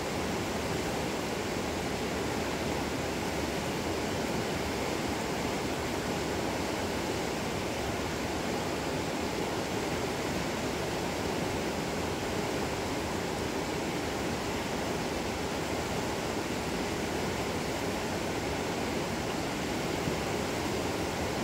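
Steady rush of a shallow, rocky river flowing around boulders.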